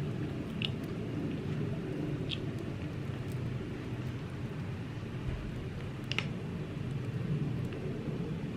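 Fire crackling: a steady low rumble with a few sharp, isolated pops.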